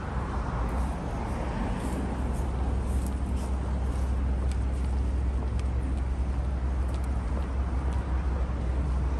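Street traffic: a steady low rumble of cars and other vehicles on a busy city road, swelling near the start as one passes, with a few faint clicks.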